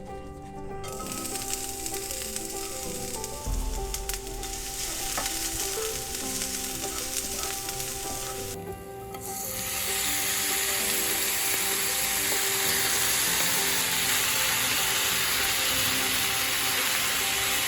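Food sizzling as it fries in a hot pan, starting about a second in, breaking off briefly near nine seconds and coming back louder. Background music plays underneath.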